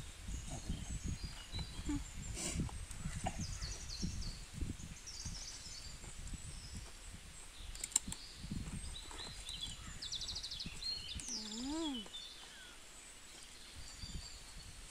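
Birds chirping and calling in the background, many short high chirps and a quick trill about ten seconds in. Under them is a low, uneven rumble that fades after about eleven seconds.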